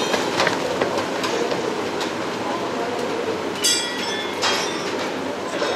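Metal-on-metal clanks and knocks from work on a ship's launch cradle, two of them ringing out about three and a half and four and a half seconds in, over a steady industrial din.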